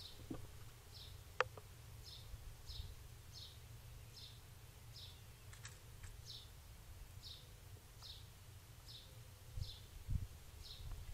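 A bird calling a short, high, falling note over and over, about two a second, over a low rumble. A sharp click about a second and a half in, and a couple of dull low thumps near the end.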